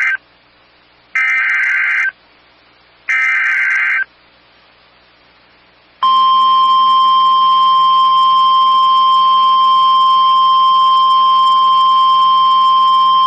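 NOAA Weather Radio Emergency Alert System signal: the end of one burst and two more bursts of about a second each of warbling SAME digital header data. About two seconds later comes the long, steady 1050 Hz warning alarm tone, which marks the start of a new weather warning broadcast.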